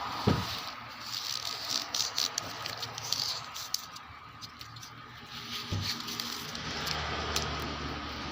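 Handling noise from a self-adhesive rubber door-seal strip being worked by hand. It gives scattered light clicks, rustles and scrapes.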